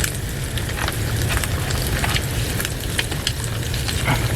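Eggs frying in a pan, sizzling with scattered crackles and pops over a steady low rumble.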